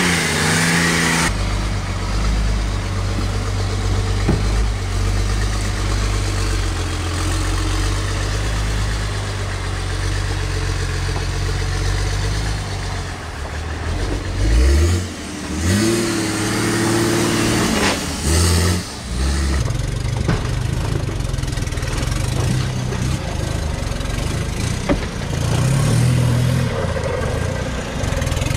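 Off-road 4x4 engine running at low revs, revved up several times in short rising bursts around the middle and again near the end.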